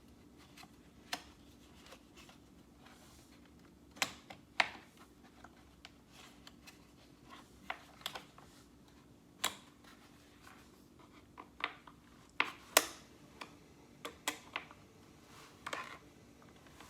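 Irregular sharp plastic clicks and knocks as small clips are worked against an IKEA Vesken shelf tray, with a few louder taps among fainter ones. The clips are not snapping into place.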